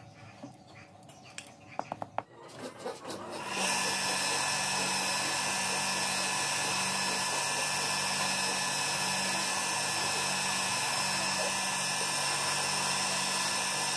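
Electric motor with a spindle-mounted sanding wheel running steadily while a black shoe sole piece is held against it, a constant whine over grinding hiss. It starts abruptly about three and a half seconds in, after a few light clicks of hand work on the shoe.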